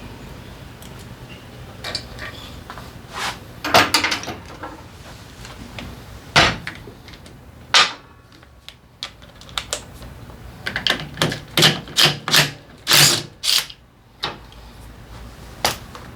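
Hand tools and metal engine parts being handled during motorcycle engine work: irregular clicks, clinks and knocks, bunched in a few clusters with short pauses between.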